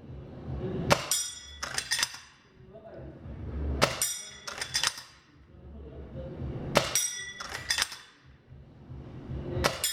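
KTW Type 38 airsoft bolt-action rifle fired four times, about three seconds apart, each shot followed within a second by a couple of sharp metallic clacks from the bolt being worked and the BB striking the steel plate.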